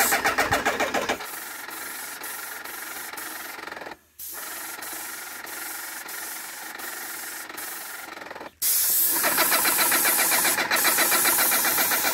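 Graco GX-19 airless paint sprayer running with a rapid mechanical pulsing from its pump, loudest in the first second and again from about eight and a half seconds on. In the quieter stretch between, there is a steady hiss of paint spraying. The sound drops out briefly twice, around four seconds in and again about eight and a half seconds in.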